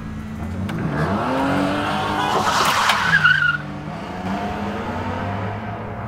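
A car accelerating hard past, its engine note rising, with a short wavering tyre squeal about three seconds in. The sound then drops away to a steady low engine idle heard from inside a car's cabin.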